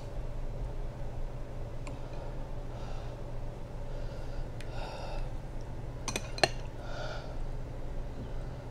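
A metal spoon clinks twice against a glass sauce bowl about six seconds in, amid soft breathing and sniffing sounds. A steady low hum runs underneath.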